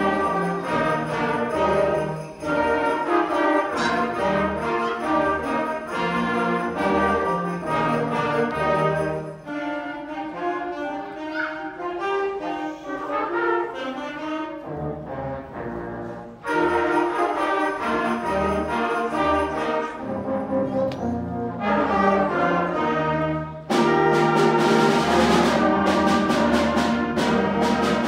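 School concert band of woodwinds, brass and percussion playing a piece. It thins to a quieter passage in the middle, then comes back in loudly with drum and cymbal strikes for the last few seconds.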